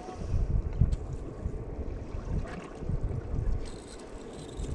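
Wind buffeting the microphone in uneven gusts, a low rumble.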